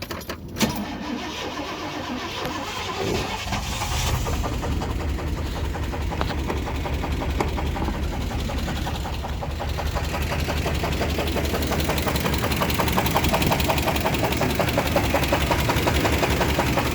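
350 V8 engine cranking and catching, then running with a fast, steady knock that gets louder around four and ten seconds in. The knock comes from the #1 connecting rod, which has no bearing left: a severe rod knock, the sign of an engine that won't last much longer.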